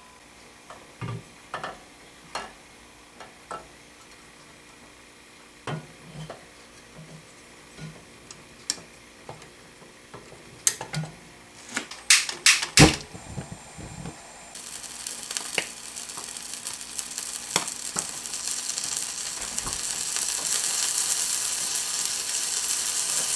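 Metal knocks and clicks as a hot sandwich maker is closed and set on a gas burner, then a quick run of sharp clicks about twelve seconds in. About two seconds later the burner comes on with a sudden hiss, and butter and cheese start sizzling inside the closed pan, the sizzle growing steadily louder.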